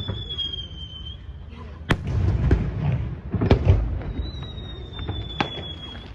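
Aerial fireworks bursting: sharp bangs about two seconds in, at three and a half seconds and near the end, each followed by a deep rumbling boom. Twice a thin high whistle falls slightly in pitch.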